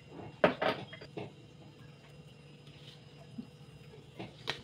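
A few light clicks and taps of a spoon against the pressure cooker and spice containers while spices are spooned onto meat, with a faint steady hum underneath.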